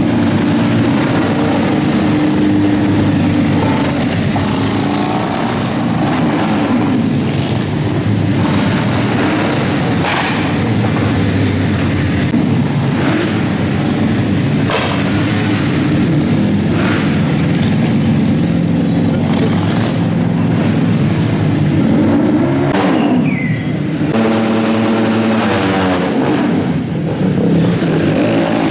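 Several small motorcycles racing close together around a tight indoor course, their engines revving up and easing off through the turns, with the pitch of the overlapping engines rising and falling.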